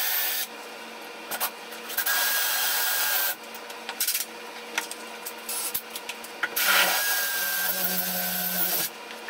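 Cordless drill boring holes into a tiled shower wall for wall anchors, running in three bursts of a second or two, each with a steady motor whine.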